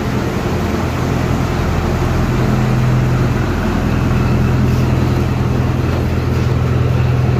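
A river passenger launch's engine running steadily, heard from on board as a constant low hum.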